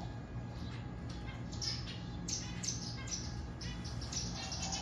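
Zebra finches calling: short nasal chirps, two or three a second, over a steady low hum.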